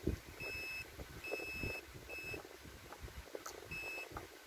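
Digital multimeter's continuity buzzer giving four short, high, steady beeps as the probe tips touch the leads of a removed IGBT, with faint clicks of the probes on the pins between them. The beep signals conduction across the leads, the sign of a shorted IGBT.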